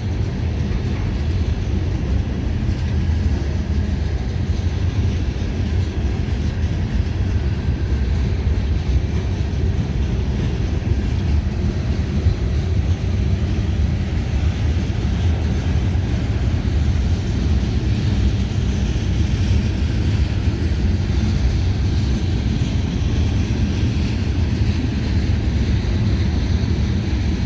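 Long, heavy CSX freight train's cars rolling past: the steady noise of steel wheels on the rails, heaviest in the low end.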